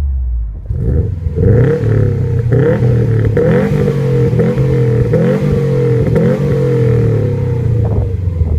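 Subaru Impreza WRX STI's turbocharged flat-four engine revved hard again and again in quick blips through a loud exhaust, its pitch jumping up and dropping back about once a second, with sharp pops between the blips. Very loud.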